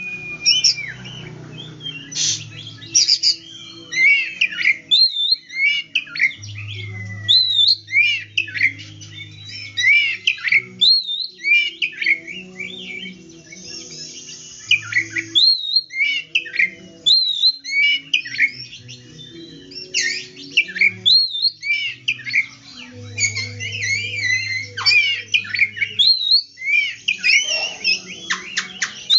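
Oriental magpie-robin singing at length: a rich, varied run of loud whistled phrases and chirps with only short pauses, the continuous song of a bird in full voice.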